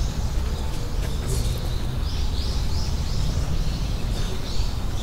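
Small birds chirping, with a quick run of short high notes in the second half, over a steady low rumble.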